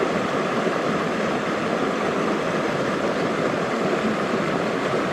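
Creek water rushing steadily over rocks close by.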